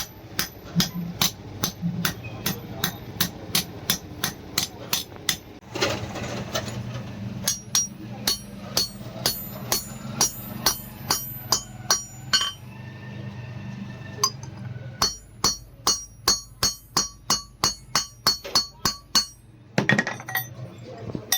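Hand hammer striking steel from a truck leaf spring on an anvil: about three sharp, ringing blows a second, in three runs with short pauses between. A steady low hum runs underneath.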